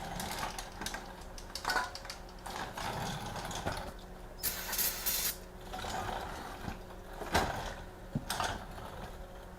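Torque wrench ratcheting in short strokes on the DPS6 transmission's drain plug, with scattered metallic clicks and knocks. A brief rush of noise comes about halfway through.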